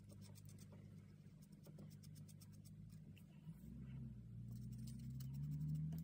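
Fine-liner pen scratching on watercolour paper in runs of short strokes, faint, in the first second and again about four and a half seconds in, over a steady low hum.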